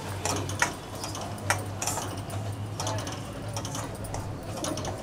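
Steel spoon scraping and clicking against a stainless-steel kadhai while stirring semolina roasting in ghee: a run of irregular clicks and scrapes, with sharper knocks about half a second and a second and a half in.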